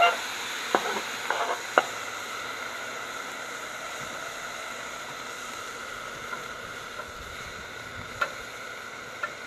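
Diced chicken steaming and sizzling under a metal dome lid on a Camp Chef flat-top griddle after a splash of water: a steady hiss. A few sharp clinks of the lid and utensils come in the first two seconds.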